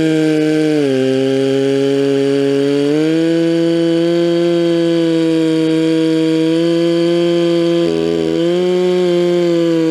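Stihl 046 Magnum two-stroke chainsaw running at full throttle with a milling chain, ripping a log lengthwise in an Alaskan chainsaw mill. Its engine note drops under load about a second in, climbs back about three seconds in, and stumbles briefly near the end.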